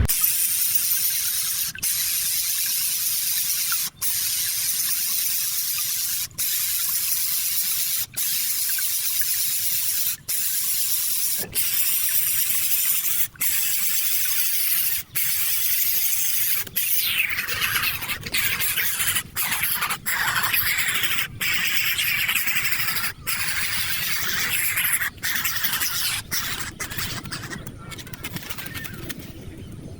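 A baby bird's harsh, hissing begging screech, repeated in long calls broken by short pauses about every two seconds. About two thirds of the way in, a squeal slides down in pitch, and the pauses come closer together near the end.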